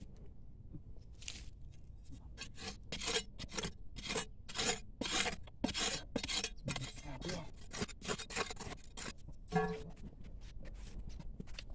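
Small shovel scraping and digging into dry sandy soil: a quick series of rough scrapes, about two to three a second, loosening the earth in a hole.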